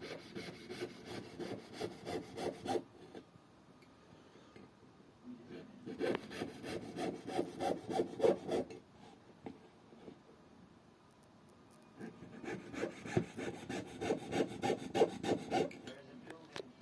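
Hand saw cutting wood in quick back-and-forth strokes, several a second, in three bouts with short pauses between.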